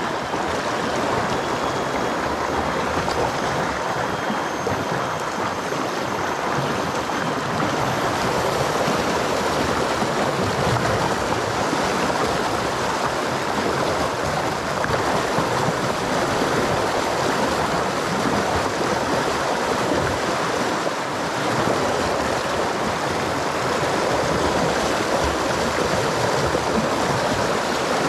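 Fast-flowing river current rushing over the shallows: a steady, loud rush of water.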